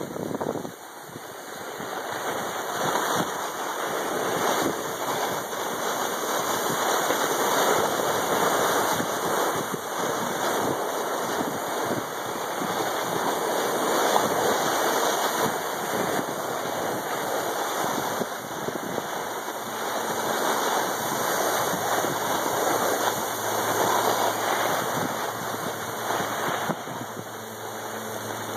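Rushing noise of skiing downhill: wind buffeting the microphone and skis hissing and scraping over packed snow. It builds over the first few seconds, then swells and eases with the turns.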